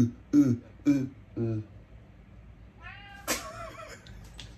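A man chanting 'go' over and over, about two a second, for the first second and a half. About three seconds in, a cat meows with a short, high, arching call.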